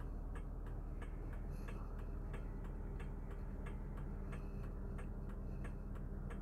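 A Hyundai Getz's four-cylinder engine idling, heard from inside the cabin as a steady low hum, with an even ticking of about three ticks a second over it.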